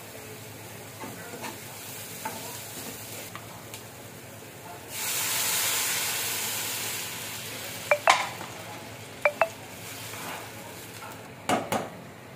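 Chopped onion, tomato and carrot frying in a pan, stirred with a metal slotted spoon. About five seconds in, water poured into the hot pan sets off a loud hiss that slowly dies down. Then come several sharp, briefly ringing taps of the metal spoon against the pan, two pairs and a final cluster near the end.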